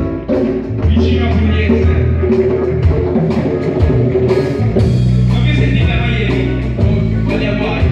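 A live blues band playing, with electric bass notes and drum kit beats with cymbals.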